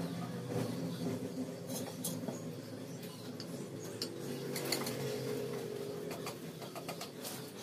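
Hand chisel paring a curved piece of wood: scattered light taps and scrapes of the steel blade on the wood, over a steady low hum in the background.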